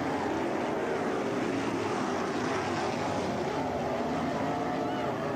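Winged sprint cars racing on a dirt oval: several V8 engines running hard at once, a steady loud drone whose pitches waver as the cars go through the turn and down the straight.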